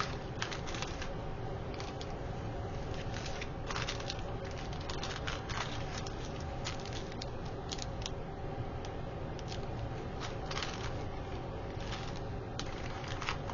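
Rustling and light clicking as packets of craft bling embellishments are handled and sorted in a small container, over a faint steady hum.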